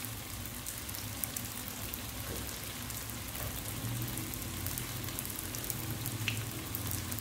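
Battered pisang sale (dried banana) pieces frying in hot oil in an aluminium wok: a steady sizzle with scattered small pops and crackles, over a low steady hum.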